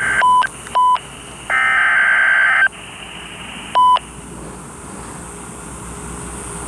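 NOAA Weather Radio receiver sounding a warning alert: three quick single-pitch beeps, then a harsh, screeching data burst of about a second (the SAME digital header that codes the warning), then one more beep, over steady radio hiss. The uploader says the radio also gives its low-battery warning beeps whenever a warning comes in.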